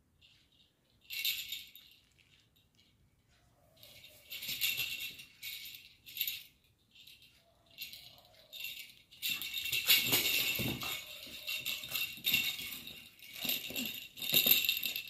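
Plastic dumbbell rattle toy for dogs shaken in short bursts of bright rattling, then a longer, louder stretch of rattling with knocks from about nine seconds in as a Labrador puppy grabs and chews it.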